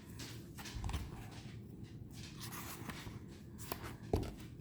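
Tarot cards being handled and slid against each other, soft rustling and scraping, with a light knock about four seconds in.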